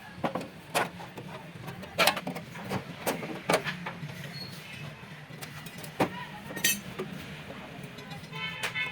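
Irregular sharp knocks and clanks of tools on metal, with a short ringing tone a little past halfway, over a steady low hum.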